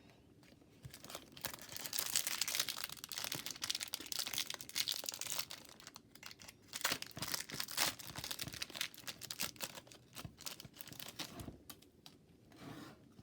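Plastic trading-card pack wrapper crinkling and tearing as it is handled, in irregular bursts of crackle for most of the stretch, quieter near the end.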